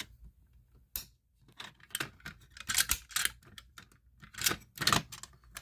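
Light clicks and rattles in several short clusters, from a fire alarm pull station being handled and worked by hand.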